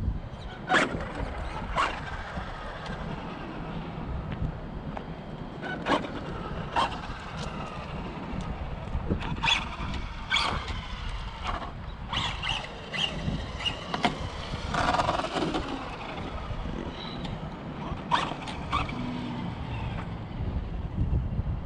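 Traxxas XO-1 electric RC car's motor and drivetrain whining as it is driven, the pitch rising and falling with throttle, with scattered sharp knocks and a steady low noise underneath.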